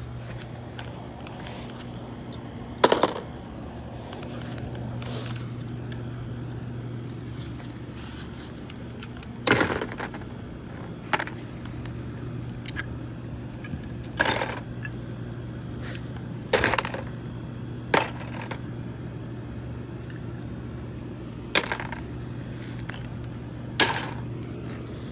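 Lego plastic bricks clattering in a string of sharp knocks, about eight of them at uneven gaps, over a steady low hum.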